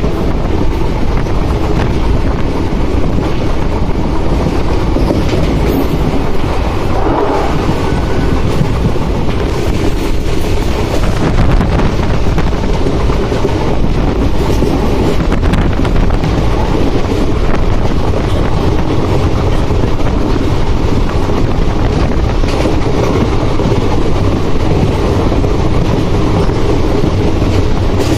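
Indian Railways express train running at speed, heard from the coach window: a steady, loud rumble and rush of the wheels on the rails, with scattered clicks.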